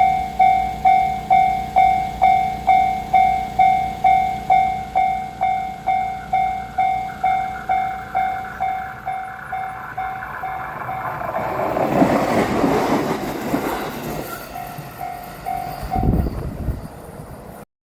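Japanese level-crossing bell ringing about twice a second and growing fainter. About ten seconds in, a JR Shikoku 7200 series electric train passes, its noise rising to a peak and then fading, and the sound ends with a low thud.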